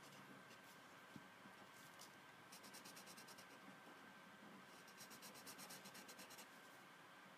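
Faint scratching of a felt-tip marker rubbed quickly back and forth on paper while colouring in, in two short runs of rapid strokes about two and a half seconds in and again around five seconds in.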